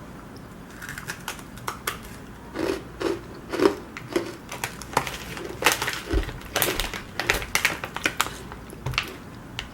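Thin, crisp cookies crunching as they are chewed: a run of sharp, irregular crunches and crackles.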